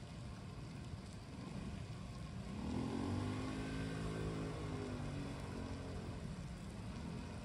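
A vehicle passing by unseen: its engine note swells about two and a half seconds in, then falls steadily in pitch over the next few seconds as it goes past and away, over a steady background hiss.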